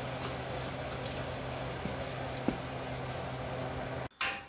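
Steady low electrical hum with a few faint ticks and a light thump about two and a half seconds in. The hum cuts off abruptly near the end, followed by a brief burst of hiss.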